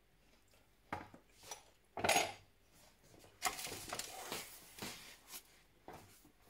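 Perforated metal serving spoon clinking and scraping against a ceramic bowl and baking tray as baked rice is scooped and served: a string of sharp knocks and scrapes starting about a second in, the loudest about two seconds in, with a busier run of scraping in the middle.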